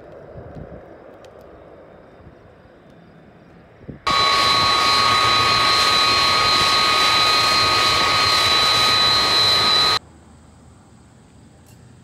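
Faint open-air ambience, then about four seconds in the jet engines of a KC-10 Extender tanker (General Electric CF6 turbofans) start up loud and steady, with a high whine over the noise, cutting off abruptly about six seconds later.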